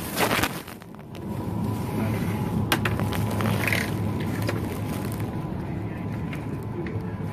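Shopping cart being pushed through a supermarket aisle, its wheels rumbling and rattling over a steady background hum.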